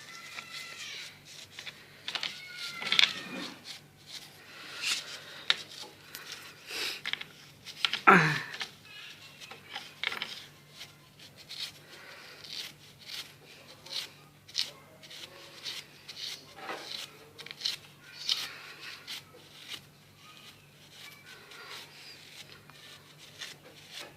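Irregular scraping and rubbing strokes as a Suzuki Smash 110 motorcycle engine is cleaned by hand, over a steady low hum, with one louder falling sweep about eight seconds in.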